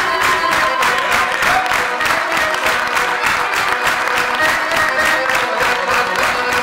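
Lively Serbian kolo folk dance music with a fast, even beat, and the audience applauding.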